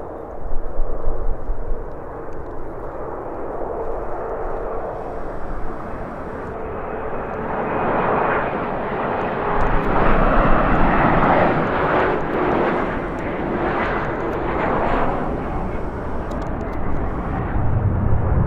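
Airliner passing close by: its engine roar builds to a peak past the middle and then eases, under a steady engine whine that slowly drops in pitch. Gusting wind rumbles on the microphone at times.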